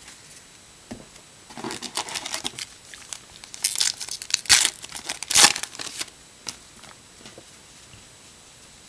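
A 2015 Topps Gypsy Queen trading-card pack wrapper being torn open and crinkled, a run of crackly rustles from about a second and a half in until about six seconds, loudest in the middle.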